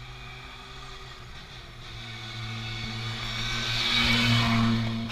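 Škoda Fabia R5 rally car's turbocharged four-cylinder engine running at a steady low pitch as the car rolls slowly past close by, growing louder to a peak about four seconds in.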